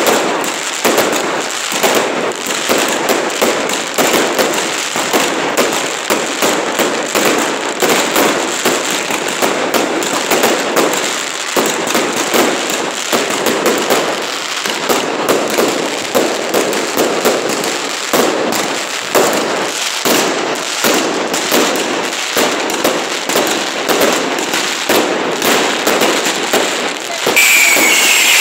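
Falla pyrotechnics going off in a dense, unbroken crackle of rapid firecracker bangs as the monument is set alight. Near the end it gets louder and a high, slightly falling whistle joins in.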